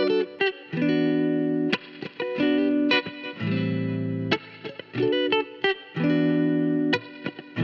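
Background music: electric guitar with effects playing chords that are held and broken off in a rhythmic pattern.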